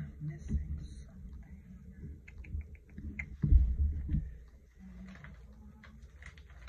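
Art supplies handled on a work desk: a quick run of small clicks a little past two seconds in, scattered light ticks, and low bumps against the table, the loudest about three and a half seconds in.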